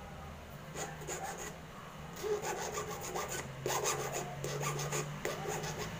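A key blank being filed by hand to cut a new key: a run of repeated filing strokes, a few at first about a second in, then denser and louder from about two seconds in.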